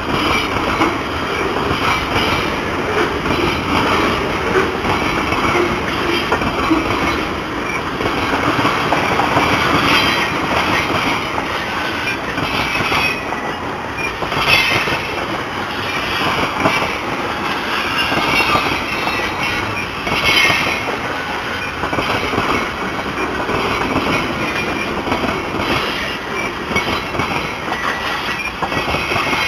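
Freight cars of a long mixed-freight train (boxcars, then tank cars) rolling past, steel wheels running steadily over the rails, with brief squeals of the wheels now and then.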